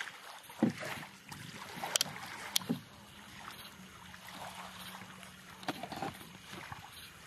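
Faint outdoor background noise with a few scattered sharp clicks and soft low knocks, and a faint low steady hum in the middle.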